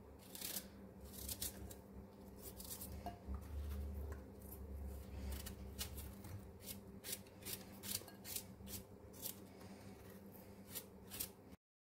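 Kitchen knife cutting small pieces off a peeled apple held in the hand: a crisp click with each cut, about two to three a second, the pieces dropping onto the plate. It cuts off suddenly near the end.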